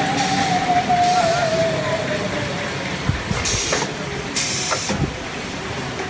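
Pneumatic cylinders of a semi-automatic napkin machine cycling: four short bursts of compressed-air hiss in two pairs over a steady factory hum. A thin whine slowly drops in pitch during the first half.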